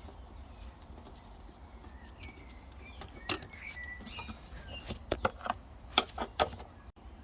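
Scattered sharp clicks and knocks, about ten of them from about three seconds in, as the bolts of a Mercedes rear-seat fold latch unit are undone and the unit is worked loose, with a few short chirps among them.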